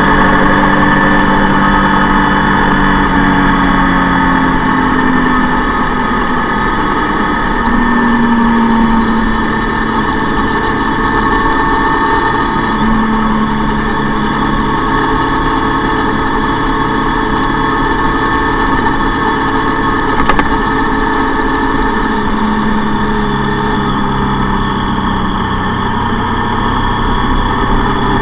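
Motor vehicle engine running steadily while riding along, its pitch shifting up and down a few times with the throttle. There is one brief click about twenty seconds in.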